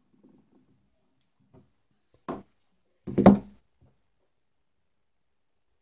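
Handling of a copper-tube mechanical vape mod on a cloth: faint rustling, then two short knocks about a second apart as it is turned and a 1 ohm test load is fitted for a voltage check.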